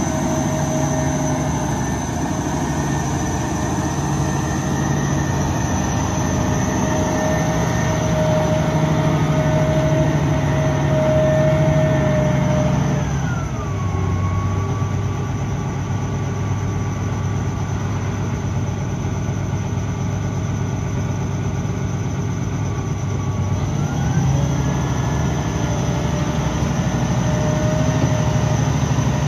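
Wirtgen 240i recycler's diesel engine running steadily at raised speed, dropping to a lower idle about halfway through and revving back up near the end.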